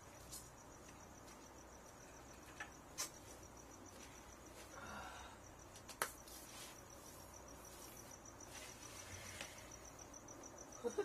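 Crickets chirping faintly in a steady, evenly pulsed trill, with a few sharp clicks about three and six seconds in.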